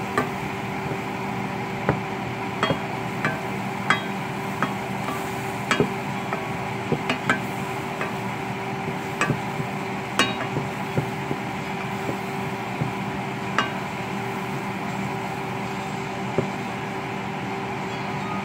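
Wooden spoon stirring bubbling butter and flour in a saucepan, with sharp irregular taps as it knocks against the pot, over a steady sizzle and a constant hum.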